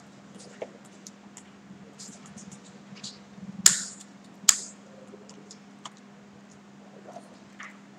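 Scissors snipping twice, under a second apart, cutting jute twine, amid light rustling and ticking of twine and paper being handled. A faint steady hum lies underneath.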